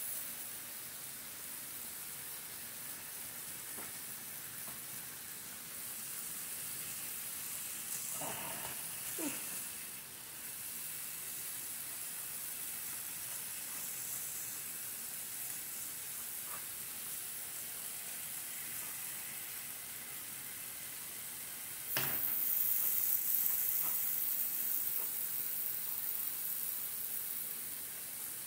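Stir-fry vegetables sizzling in a hot pan: a steady hiss, which grows louder after a sharp click about three-quarters of the way through.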